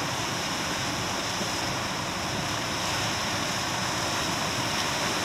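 Steady rush of ocean surf washing over the shoreline lava rocks, an even noise with no separate splashes or calls.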